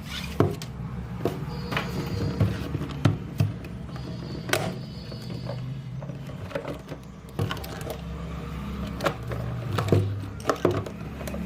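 Background music with scattered light clicks and taps from small plastic toy pieces being handled and unpacked.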